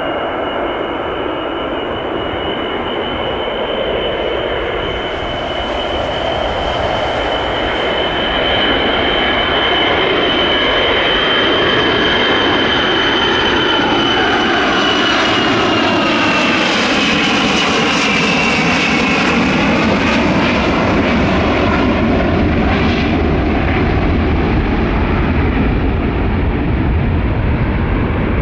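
Airliner's engines passing low and close: a loud rushing roar with a high whine that holds steady, then falls in pitch as the aircraft goes by about two-thirds of the way through.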